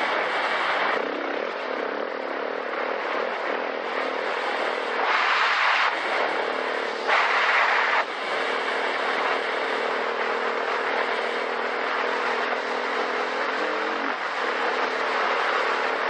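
Dual-sport motorcycle engine running at a steady pace under a loud, steady rushing noise. The engine note changes about fourteen seconds in, and the rushing swells twice, about five and seven seconds in, for about a second each time.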